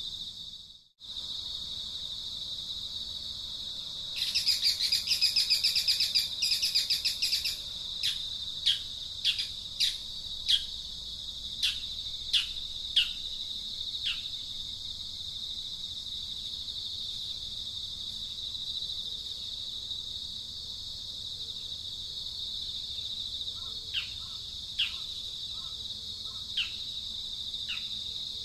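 Outdoor ambience of a steady high insect drone with bird calls over it: a rapid chattering trill about four seconds in, then a run of sharp, quickly falling chirps, with a few more near the end.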